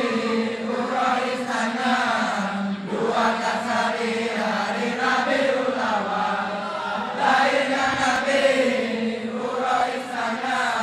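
Group of men chanting dikee, the Acehnese devotional chant (zikir) in praise of the Prophet, many voices together over a steady low held note. The chant moves in long phrases, with a fresh phrase starting about three seconds in and again about seven seconds in.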